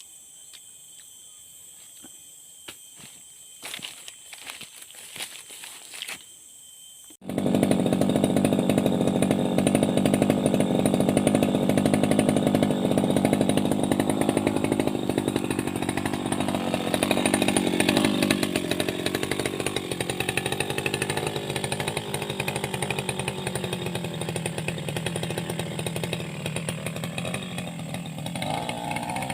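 Faint insect trilling and a few clicks, then, about seven seconds in, a brush cutter's small two-stroke engine comes in abruptly, loud and at high speed. It runs on as grass and brush are cut, its pitch wavering under load.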